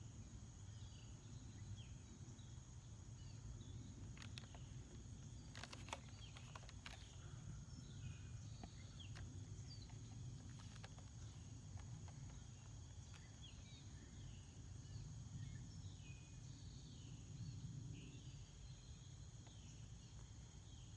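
Faint evening outdoor ambience: crickets trilling steadily in a high tone, with short falling chirps scattered through it over a low distant rumble. A few faint clicks about four to seven seconds in.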